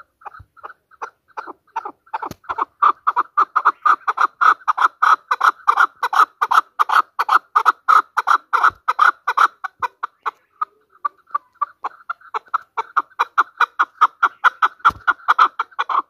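Chukar partridge calling: a fast, even series of short 'chuck' notes, about five a second, that swells over the first two seconds, softens briefly about two-thirds of the way through, then grows loud again.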